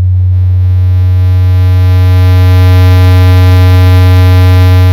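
Electronic tones from a home-made Java software synthesizer: a steady low sine tone at a fixed pitch, with a square wave at the same pitch faded in over a few seconds as its oscillator volume is raised, filling in a bright stack of overtones. The square wave eases back slightly near the end.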